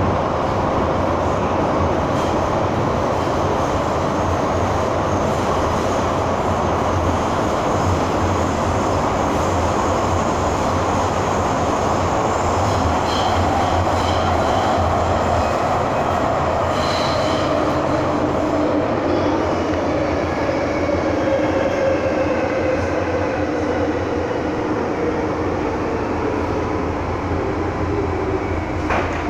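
MTR M-Train metro car running, heard from inside the passenger car: a steady rumble of wheels and running gear, with a thin whine that falls in pitch over the second half.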